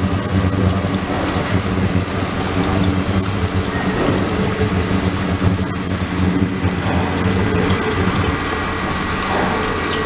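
Water pouring and splashing into an ultrasonic tank over the steady hum of a liquid circulation pump. A thin high whine runs along with it; its top part drops away about six seconds in and cuts off about eight seconds in.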